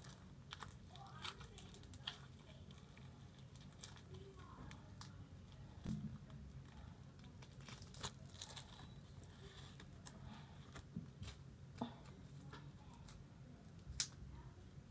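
Thick orange slime being stretched and torn apart by hand, giving faint, scattered pops and crackles, with the sharpest ones about a second and a half in, about eight seconds in and near the end.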